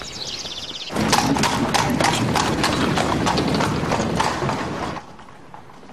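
Horse's hooves clip-clopping loudly in a quick, dense run of knocks, starting about a second in and cutting off suddenly about four seconds later.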